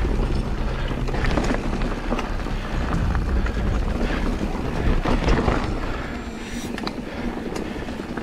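Wind buffeting an action camera's microphone as a mountain bike rolls fast down a dirt trail, with tyre noise and frequent clicks and knocks from the bike rattling over bumps. It grows a little quieter near the end.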